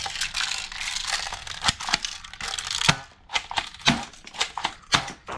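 Plastic toy guns being handled and shifted about in a cardboard box: rustling and scraping, then a string of separate plastic clicks and knocks in the last two seconds or so.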